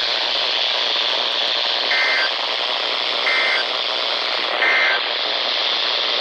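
Steady radio static hiss with three short, identical electronic data bursts about a second and a half apart: the Emergency Alert System end-of-message code that closes the broadcast alert.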